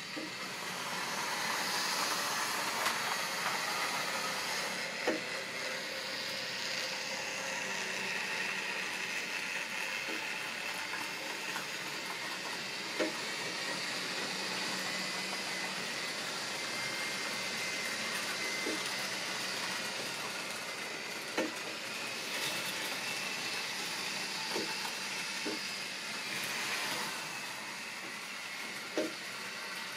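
Model trains running on the layout: the steady whirr of the locomotive motors and wheels rolling on the track, with a faint whine and a few isolated sharp clicks.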